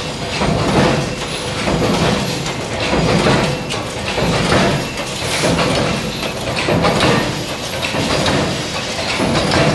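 Cold forging machines making bolts from coiled steel wire, running together in a loud, continuous clattering din that swells and eases about once a second.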